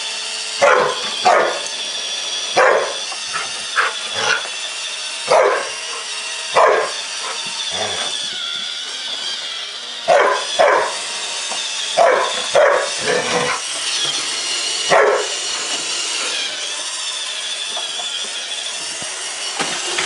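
A Samoyed barking, about a dozen short barks, often in pairs, that stop about three-quarters of the way through. Under the barks a Roomba robot vacuum runs with a steady whine.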